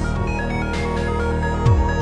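Electronic background music with a steady beat, deep falling kick-drum hits and synth tones.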